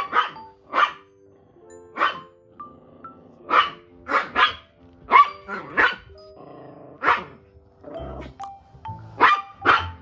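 Small poodle-mix dog barking in short, sharp barks during play, about a dozen spread irregularly, some in quick pairs and threes. Light background music with held notes runs underneath.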